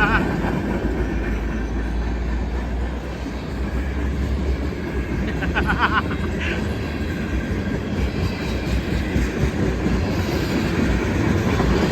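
Train running with a steady heavy rumble and wheel clatter, and a short high wavering squeal about halfway through.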